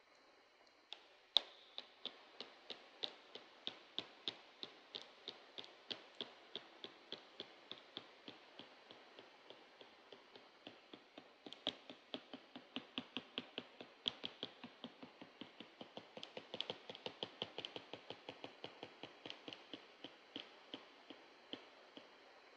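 Sharp clicks in a steady rhythm, about three to four a second, starting with one louder click a little over a second in and getting denser and louder in places toward the middle and later part.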